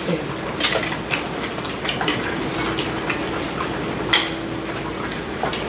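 Eating utensils clinking against bowls and the hot pot: scattered light clicks, about a dozen, over a steady hiss.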